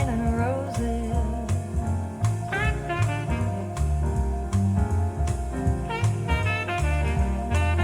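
Instrumental jazz passage played back through a JBL 4307 studio monitor: a walking bass line stepping along under regular drum strokes, with short melodic phrases from a lead instrument over the top.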